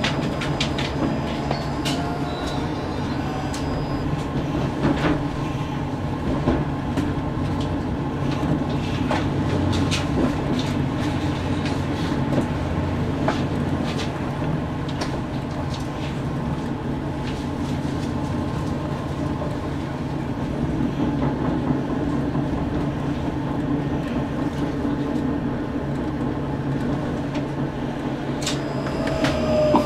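Tram running along its rails, heard on board: a steady low hum of the drive with the rumble of wheels on track and scattered sharp clicks.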